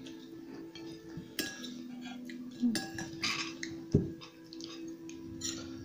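Metal spoons and forks clinking and scraping against ceramic plates and a serving bowl as people eat, with a few sharp clinks scattered through, the strongest about four seconds in.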